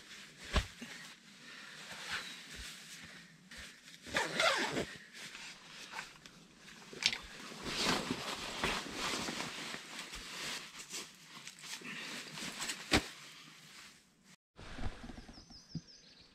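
A rain suit's fabric rustling as it is handled and put on, with a zipper being pulled and scattered small clicks and knocks. The sound cuts off abruptly about 14 seconds in.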